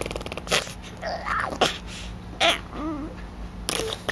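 A baby blowing raspberries: a quick buzzing lip trill at the start, then short breathy puffs and a small squeaky vocal noise.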